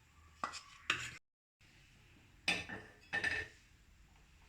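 Kitchen utensils clinking and knocking: two quick clinks, a brief dropout to silence, then two more clatters about half a second apart.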